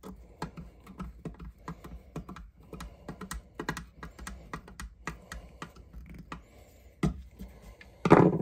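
Hand screwdriver turning small screws into a rifle's brass trigger guard, giving a run of small, irregular clicks and ticks as the blade works the screw heads. A louder thump comes near the end.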